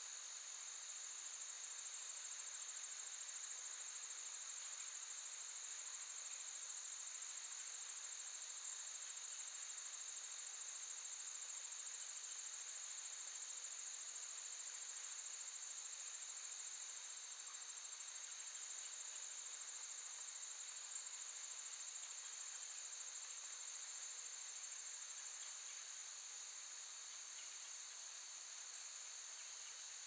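Continuous high-pitched insect chorus, steady and unbroken, with two pitches sounding together.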